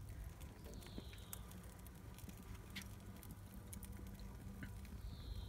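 Wood and charcoal fire in an open grill crackling: scattered faint pops and clicks over a low steady rumble. A short high falling chirp sounds about a second in and again near the end.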